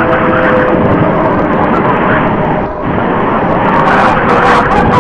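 Loud, heavily amplified hiss and rumble of an old optical film soundtrack, with faint held tones buried in it and two short dips.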